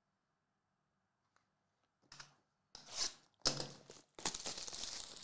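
Plastic shrink wrap being torn and crinkled off a sealed trading card box, in several crackling bursts starting about two seconds in, the last one longer.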